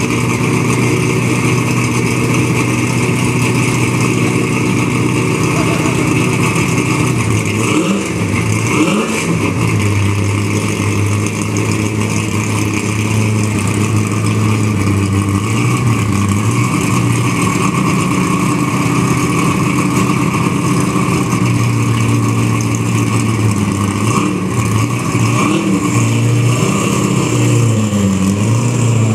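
Group C Ford Falcon race car's V8 idling with a lumpy, uneven beat, the throttle blipped several times so the revs rise and fall. It pulls away near the end.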